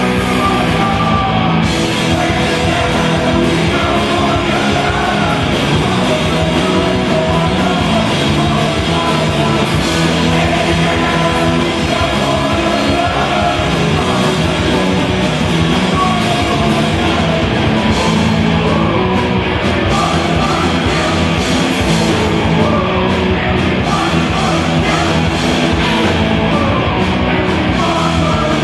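Rock band playing live and loud on electric guitars, bass guitar and drums, with a singer shouting the vocals into a microphone.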